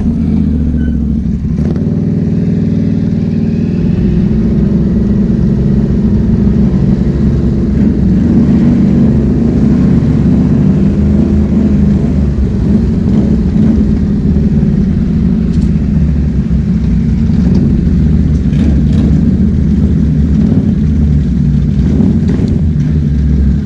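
ATV engine running loud and close to the microphone, a steady low drone with small rises and falls in speed as the quad rolls over pavement and sits at a stop.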